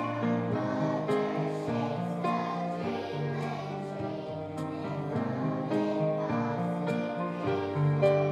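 Music: a group of young children singing a song together over an instrumental accompaniment.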